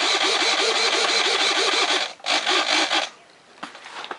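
Small RC servos whirring back and forth in quick pulses as they drive the foam jet's elevons, stopping about three seconds in. A couple of faint handling knocks follow.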